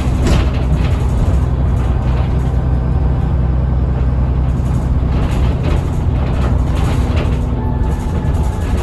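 Transbus Trident bus's Cummins ISBe diesel engine running steadily, with a faint steady whine from the turbocharger over the low engine drone.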